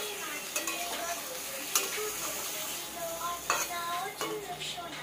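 Cauliflower and potato pieces frying in a steel kadai and being stirred with a spatula: a steady sizzle, with several sharp clicks and scrapes where the spatula strikes the pan.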